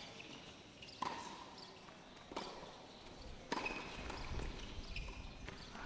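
Tennis ball struck by rackets during a doubles point: three sharp pops, about a second apart, as the serve, return and next shot are hit. A low rumble rises near the end.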